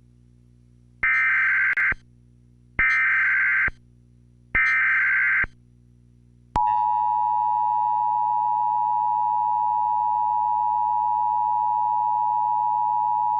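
Emergency Alert System header: three bursts of digital data tones, each about a second long, then a steady loud single-pitch attention tone that starts about six and a half seconds in. It is the signal that opens an emergency broadcast, here a tornado warning.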